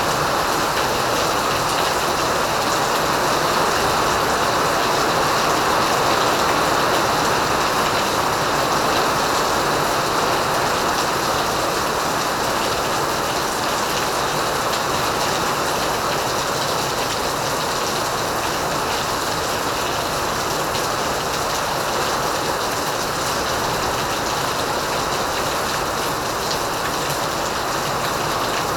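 Heavy rain pouring down: a steady, even rush of downpour noise.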